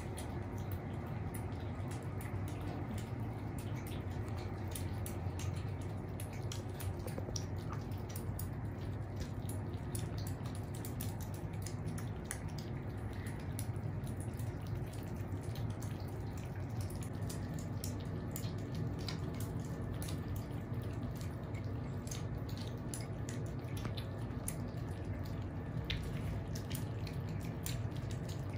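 Several kittens eating wet cat food together from plates, a continuous scatter of small, wet clicking and smacking sounds of chewing and lapping, over a steady low hum.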